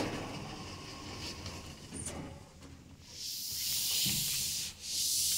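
Two long airy hisses back to back, each about a second and a half, starting about three seconds in, with a short break between them.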